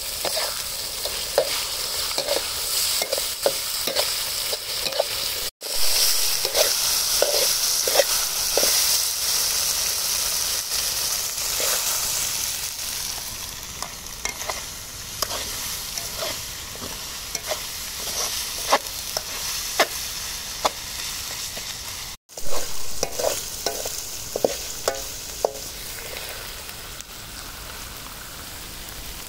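Shrimp paste and minced pork sizzling in a hot pan while being stirred, the utensil scraping and clicking against the pan over and over. The sound drops out briefly twice.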